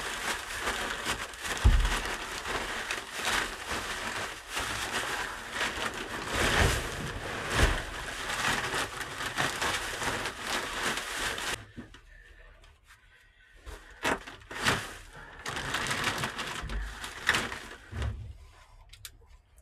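Fresh pine shavings being shaken out of a bag and spread as coop bedding: a dense, dry rustling and crinkling with scattered small knocks. It stops suddenly about twelve seconds in, leaving only occasional soft rustles and taps.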